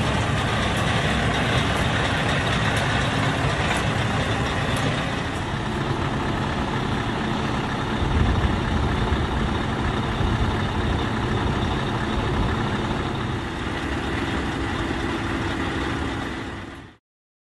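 Scania R730's V8 diesel engine idling steadily with a deep rumble, until it cuts off suddenly near the end.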